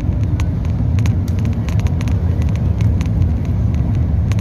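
Steady low rumble of a bus's engine and road noise heard from inside the passenger cabin, with irregular light clicks and rattles scattered through it.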